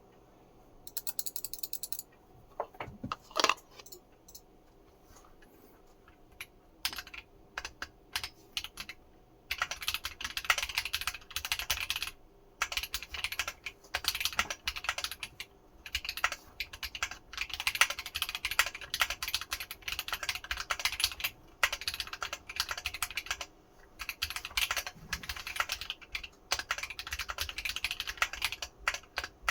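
Typing on a 60% mechanical keyboard built on a 1upKeyboards Pi60 PCB in a ZMX H60 case. A few scattered clicks and single keystrokes come first, then steady typing starts about a third of the way in, with brief pauses.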